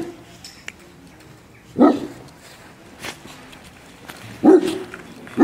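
A dog barking behind a fence: single barks, one about every two to two and a half seconds.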